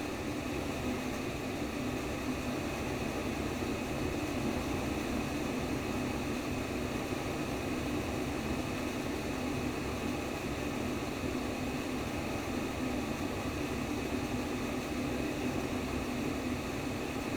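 Steady white noise with a low rushing hum, a simulated womb sound, holding even with no beat or pulse.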